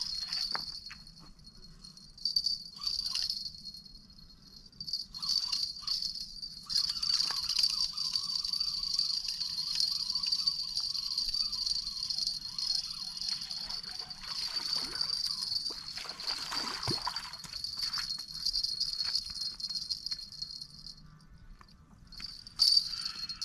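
Crickets chirring in a dense, high-pitched trill that keeps up almost throughout and breaks off for a moment near the end, over a faint low hum.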